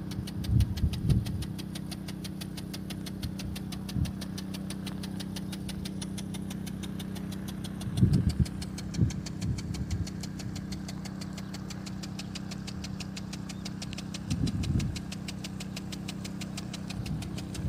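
Small 5 hp petrol engine driving a water pump, running steadily at a constant speed, with a few short low thumps.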